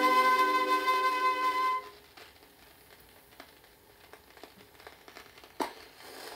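A vinyl record on a turntable playing the end of a 1950s Japanese popular song: the orchestra, with flute and strings, holds a final chord that stops about two seconds in. After that the stylus runs on in the groove with faint surface crackle and one sharp click near the end.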